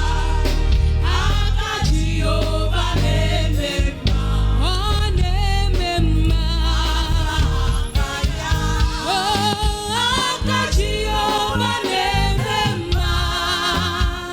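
Gospel praise and worship music: singers with a band, with a strong bass.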